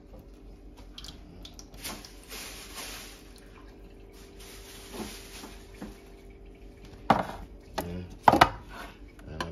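Kitchen work noises over a steady low hum: a short rush of running water about two seconds in, then two sharp knocks near the end as metal food cans are handled on the worktop.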